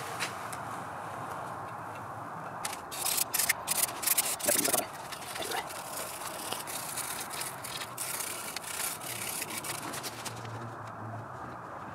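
Small stiff nylon brush scrubbing gummed-up oil deposits off an aluminium IMRC intake port plate. It comes in quick, loud strokes about three to five seconds in, then settles to a steadier rasping scrub that stops about ten seconds in.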